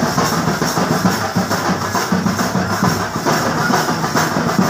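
A drum troupe playing a fast, dense, unbroken rhythm on large cylindrical drums, struck many times a second.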